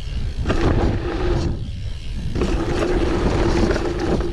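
Octane One Void dirt jump bike rolling fast on a packed-dirt trail: tyre noise and wind rumble on the camera, with a steady hum and a few sharp knocks. The tyre noise drops away for most of a second about halfway through, then comes back.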